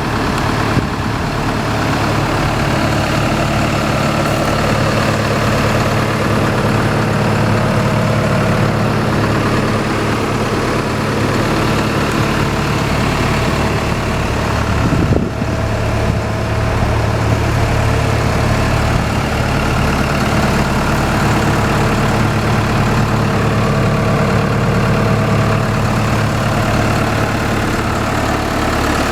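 Gehl 7810E skid steer's diesel engine running steadily at idle. About halfway through there is a brief dip, after which its note changes slightly.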